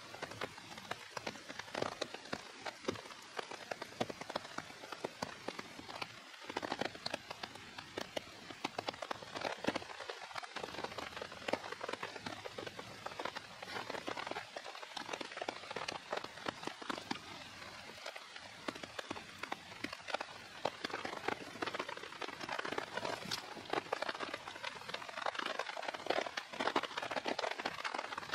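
Steady rain falling, a dense run of small drops ticking on a tarp and rain poncho.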